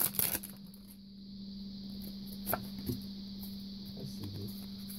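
Pokémon trading card booster pack being opened by hand: a short burst of foil wrapper crinkling at the start, then quiet handling of the cards with a few light clicks.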